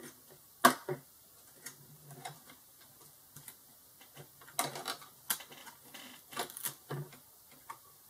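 Irregular plastic clicks, taps and rattles of hands handling an opened laptop's case and the DC power jack wiring harness, with a sharp click under a second in and clusters of clicks in the second half.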